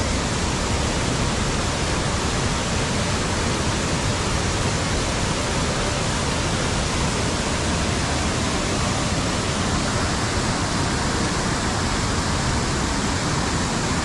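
Waterfall, heavy water falling with a loud, steady rushing noise.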